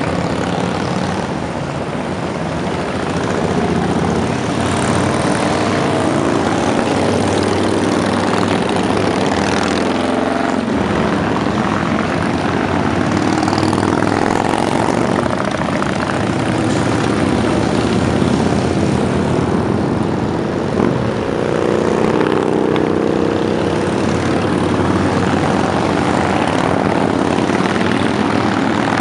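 A steady stream of motorcycles, mostly Harley-Davidson V-twin touring bikes, riding past one after another, their engines running loudly with no break.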